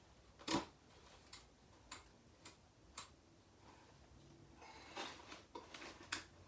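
Faint clicks and light knocks from handling a prop doll and its support poles during assembly, about five scattered through the first three seconds with the first the loudest, then a stretch of rustling and denser clicking near the end.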